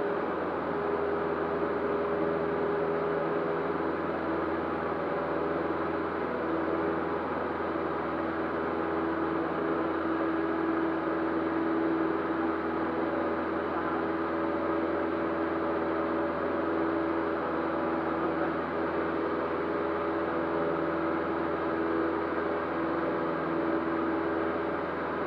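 Cessna 152's four-cylinder Lycoming O-235 engine and propeller droning steadily in the cockpit, at high power during the climb after takeoff.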